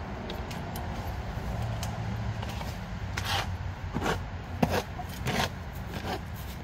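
A rake scraping and dragging old litter across the chicken coop floor in repeated short strokes, most of them in the second half, over a steady low rumble.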